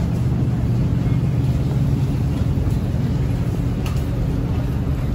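Steady low rumble of a metro train standing at the platform behind the screen doors.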